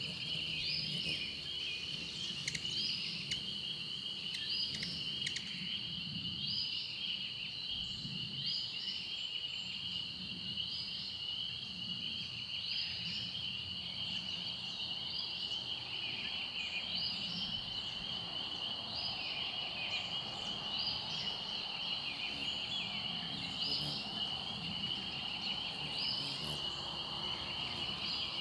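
Steady, shrill chorus of insects in two unbroken high bands, with short rising chirps recurring about every second and a half.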